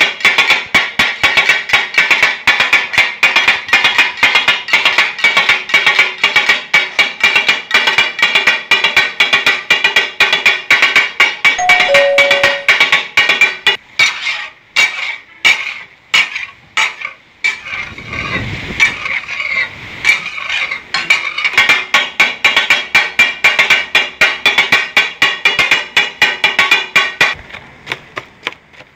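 Steel spatulas rapidly striking and chopping on a hot iron tawa griddle, a fast ringing metallic clatter of several strikes a second, the taka-tak of street-food cooking. Around the middle it thins to a few spaced strikes, then picks up again over a steady sizzling hiss, and fades near the end.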